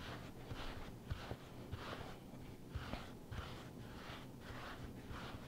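Hands shaping a ball of bread dough on a floured plastic cutting board: faint, soft rubbing strokes about twice a second as the dough is cupped and turned to smooth it into a loaf, with a few light knocks.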